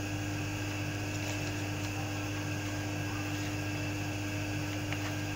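Steady low hum with an even background hiss, unchanging throughout, with no distinct knocks or handling sounds standing out.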